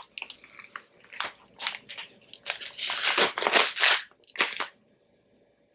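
Shipping packaging crinkling and crunching as it is pulled open and unwrapped, in irregular rustling bursts that stop near the end.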